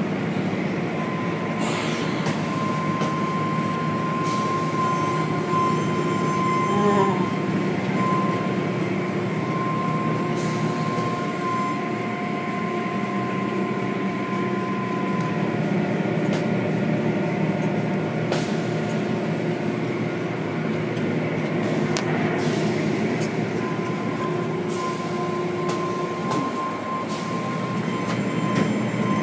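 Automatic tunnel car wash machinery running: a steady machine hum with a high whine, over the rush of water spraying. A few short knocks; the high whine fades out about halfway through and returns near the end.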